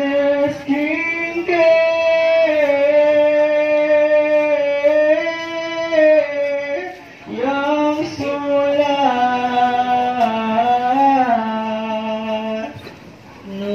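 A single voice singing slow, drawn-out phrases with long held notes: one long phrase, a short break about seven seconds in, then a second long phrase that ends about a second before the close.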